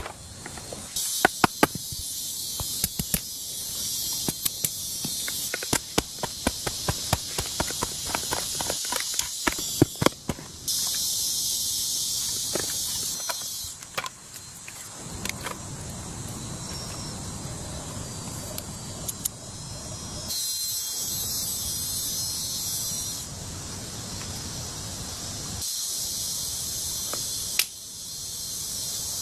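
High-pitched insect chorus that cuts in and out abruptly several times, with many sharp clicks and snaps through the first ten seconds or so.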